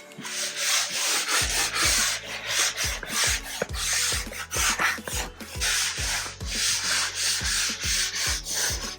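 Hand-sanding a drywall patch with abrasive paper: steady back-and-forth scraping strokes, about two a second.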